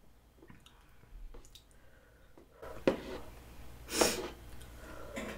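Wooden spoon scooping saucy rice cakes from a paper cup, with faint scattered clicks and scrapes. Two short, louder breathy sounds come about three and four seconds in.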